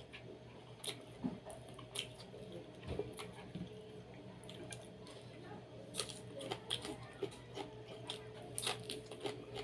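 Wet mukbang eating sounds from boiled chicken with broth: soft chewing and sipping with scattered small clicks and taps, over a low steady hum.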